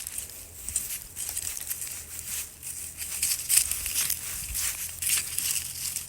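Dry leaf mulch and soil rustling and crunching as they are dug through, in a run of irregular scrapes.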